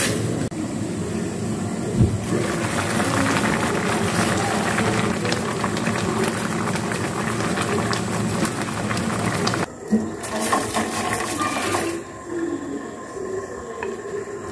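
Pot of water at a rolling boil with a steady hiss, as wooden chopsticks stir and turn blanching choy sum greens; a single knock about two seconds in. Near the end the hiss drops to quieter bubbling, with light clinks and rustles as the greens are lifted out onto a plate.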